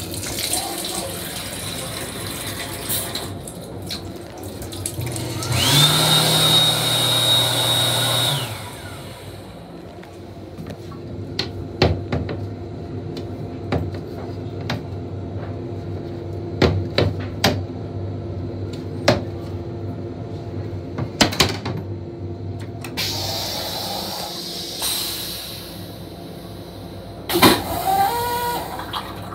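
Train restroom toilet on an M7 railcar flushing about six seconds in: a loud rush with a steady high whine, lasting about three seconds. Throughout, the moving railcar's running noise, with scattered clicks, clanks and rattles.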